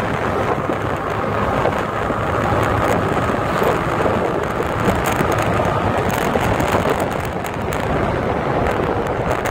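Wind rushing over the microphone of a moving sport motorcycle, with the bike's running engine and road noise underneath, a steady loud rush throughout.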